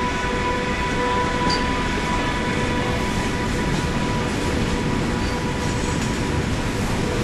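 An electric KTT through train running past at speed: the rushing rumble of wheels on rail as the double-deck coaches roll by. A steady high whine, likely from the locomotive, fades out about three seconds in.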